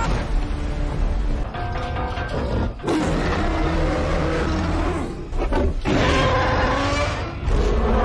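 Monster-movie soundtrack: dramatic music over heavy deep rumbling, with the roaring of a giant ape-like creature.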